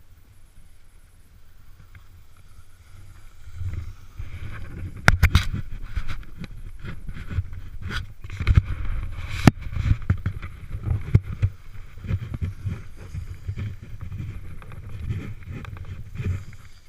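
Snowboard sliding down a slope: the board scrapes and chatters over the snow, with sharp knocks. It starts about three and a half seconds in, after a quieter stretch.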